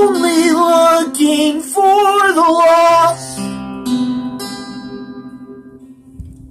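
A man singing held notes with vibrato to his own strummed acoustic guitar for about three seconds, then the guitar alone, a few more notes that ring out and fade away.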